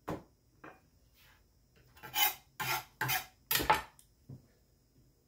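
Chef's knife scraping shredded carrot across a plastic cutting board in four short strokes about two seconds in, after a light click at the start.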